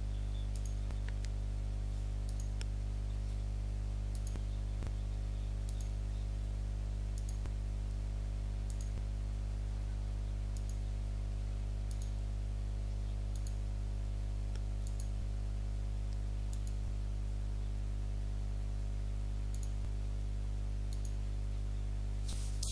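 Computer mouse clicking about once every second and a half, points being placed one at a time, over a steady low electrical hum.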